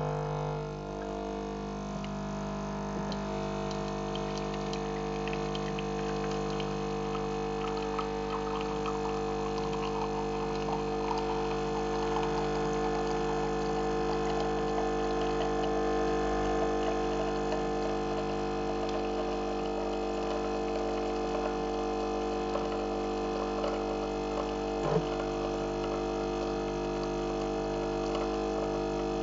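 Coffee capsule machine brewing a cup: its pump hums steadily while coffee trickles with a fine crackle into the cup. There is one brief sharp noise near the end.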